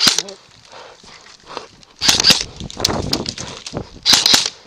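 Hurried footsteps with equipment rattling, heard on a body-worn camera, with two short loud bursts of rapid clatter: one about two seconds in and one near the end.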